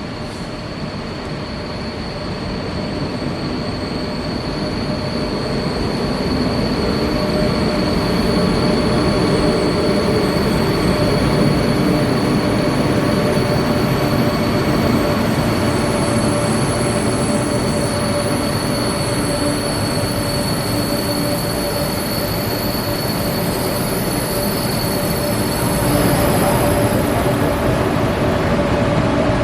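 Korail KTX high-speed train running. Its rumble grows louder over the first several seconds and then holds, with steady high-pitched whines over it; one whine fades out near the end.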